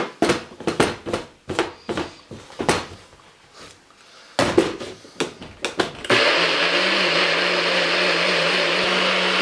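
Hard plastic clicks and knocks as a NutriBullet's blade base is screwed onto the cup and the cup is seated on the motor base. About six seconds in, the NutriBullet motor starts and runs steadily for over three seconds with a low hum, grinding jalapeños, herbs, garlic and olive oil into schug sauce.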